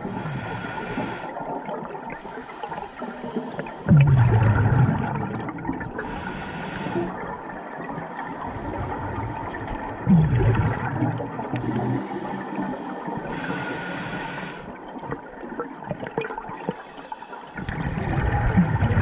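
Scuba diver breathing through a regulator underwater: hissing inhalations, each followed by a loud low rumble of exhaled bubbles, three breath cycles over a steady underwater hiss.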